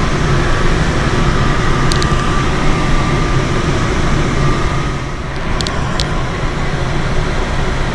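Steady rush of airflow around a Schleicher K13 glider in flight, heard from inside the cockpit. A few faint ticks come about two seconds in and again near six seconds.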